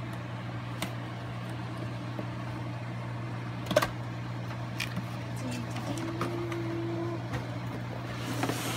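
Cardboard box of a toy blaster being opened by hand: a few scattered clicks and taps, with one sharper snap about four seconds in, over a steady low hum.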